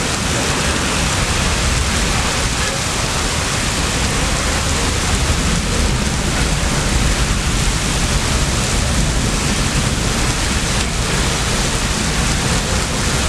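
Steady, loud rush of water spray from fire hose streams mixed with the burning of a live-fire training prop.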